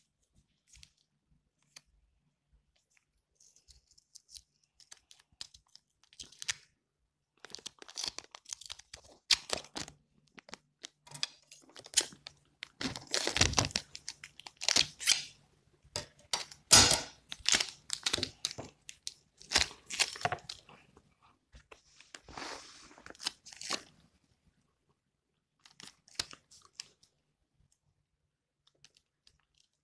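Clear packing tape being pulled off its roll and torn in a series of sharp rasping rips, loudest about halfway through, with crinkling as it is handled and wrapped around plastic drinking straws.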